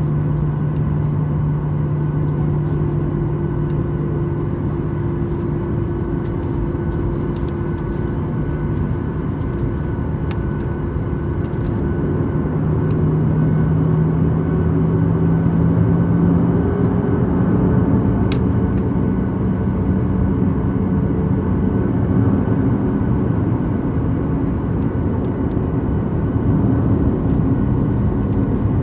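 Boeing 737-800's CFM56 jet engines running at taxi power, heard inside the passenger cabin as a steady hum and whine. About halfway through the pitch rises a little and the sound grows slightly louder as the engines take on more thrust while the jet turns onto the runway.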